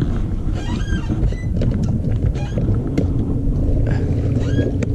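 Low steady rumble of a boat's running motor, with a steady hum coming in about halfway. Short, high squeaky chirps are scattered through it.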